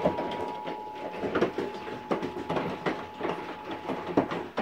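Irregular crackles and knocks of wind and handling on a phone microphone, with a steady electronic alert tone that stops about a second in.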